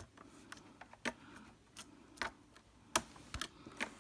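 Sharp plastic clicks and taps at irregular intervals from a laptop keyboard being pried up out of its clips with a flathead screwdriver, the loudest about three seconds in.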